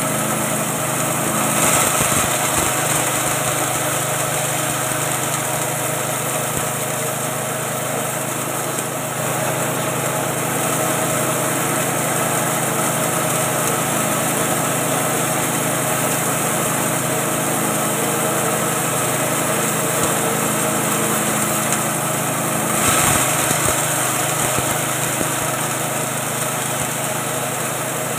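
Small 6.5 hp engine running steadily under load, driving a grinding machine that is milling feed into meal. It gets briefly louder about two seconds in and again near the end.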